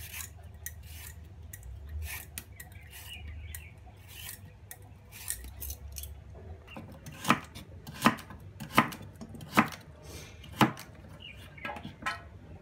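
A vegetable peeler scraping a carrot in quick light strokes, then a Chinese cleaver chopping the carrot on a wooden cutting board: five loud, sharp chops a little under a second apart in the second half, followed by a few softer knocks.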